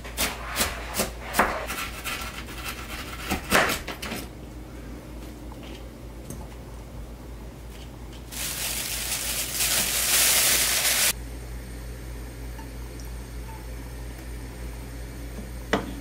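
A knife chopping an onion on a plastic cutting board, a quick run of chops in the first four seconds. Later a steady hiss lasts about three seconds, and a single click comes near the end.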